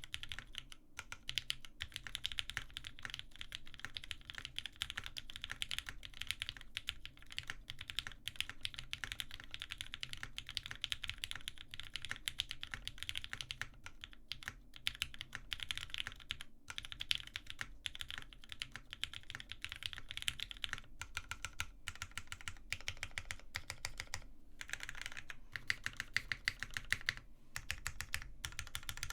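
Continuous typing on a Wendy TKL custom mechanical keyboard with Ultraglide switches, a polycarbonate plate and GMK keycaps: a fast, steady stream of keystroke clacks with a few brief pauses.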